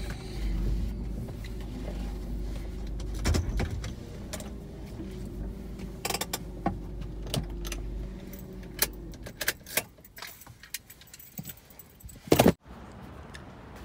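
A car's engine running low and steady, going quiet about eight seconds in, followed by jangling keys and scattered sharp clicks of handling, with one loud knock near the end.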